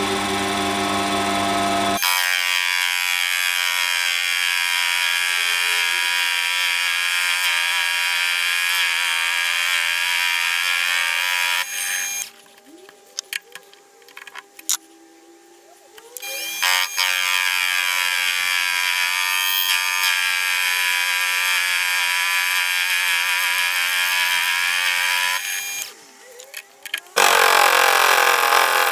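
Warco WM180 mini lathe running with a steady high-pitched whine. It stops abruptly about twelve seconds in, with a few clicks during the pause, and starts again about four seconds later. It stops and restarts once more near the end.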